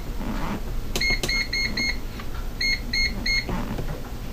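GoWise USA air fryer control panel beeping at each button press while the temperature is set: about nine short, high beeps in two quick runs, around one and three seconds in, with a low steady hum underneath.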